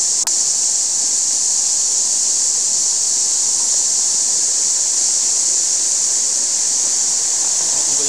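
Shallow rocky mountain stream rushing steadily over stones, a constant hiss of running water. A brief click shortly after the start.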